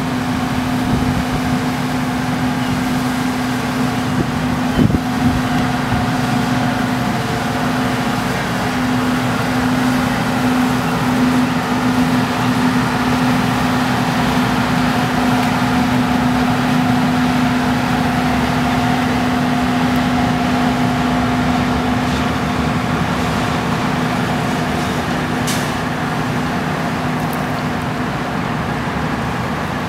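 Tugboat's diesel engine running at a steady drone as it passes close by, over the rush of water churned along its hull.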